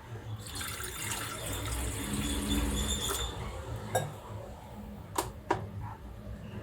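Water pouring into a pot for about three seconds, followed by three sharp clinks of a vessel or utensil.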